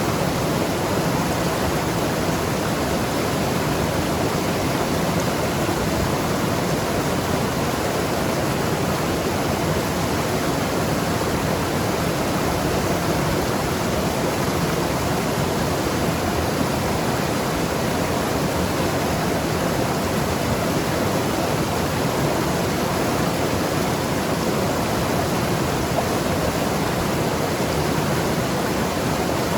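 Mountain river rushing and tumbling over rocks: a steady, even water noise with no breaks.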